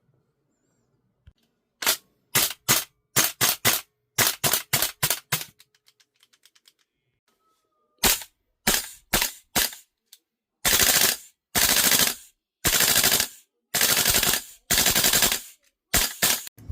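VFC AR-15 gas blowback airsoft rifle firing: a quick string of about a dozen single shots, a few more single shots, then four full-auto bursts of about a second each, and two last shots near the end.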